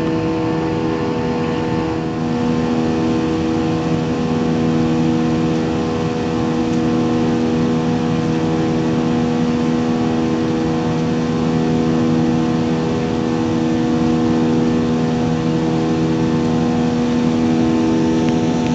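Inside the cabin of a Super Air Jet Airbus A320-family jet airliner climbing out after takeoff: a steady engine drone with several unchanging hum tones over the rush of air.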